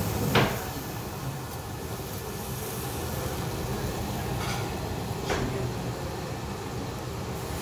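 Steady rumbling noise from a tabletop charcoal grill and its surroundings, with one sharp clink of metal tongs on the stainless wire grate about half a second in and two fainter clinks later.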